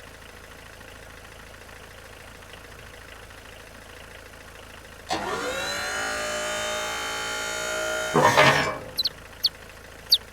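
Cartoon sound effect of a boom truck's motor working its boom: a whine rises sharply in pitch about five seconds in, holds steady for about three seconds, then ends in a short noisy burst. A little bird chirps several times near the end.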